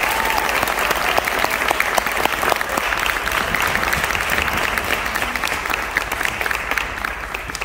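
Audience applauding: dense clapping from a large group that thins and quietens near the end.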